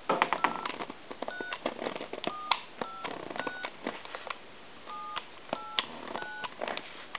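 Touch-tone keypad of a Radio Shack Pallette Fashions telephone being dialed key by key, about eight short dual-tone DTMF beeps with uneven gaps and clicks between them. The keys are being tested one after another on a newly fitted main circuit board.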